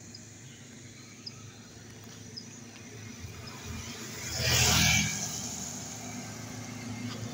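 A motorcycle passing close by: its engine and road noise swell to a peak about halfway through and then ease off, over a low steady background hum.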